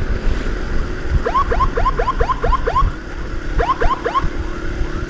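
Electronic escort siren sounding bursts of quick rising chirps, about four a second, in two runs with a short gap, over motorcycle road and engine rumble; a steady tone joins about three seconds in.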